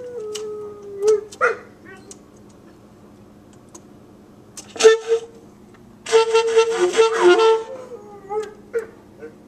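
A dog howls and yips along with a saxophone. A drawn-out, slightly falling howl opens; the saxophone plays a short blast about five seconds in and a longer phrase a second later, and short whimpering yips follow near the end.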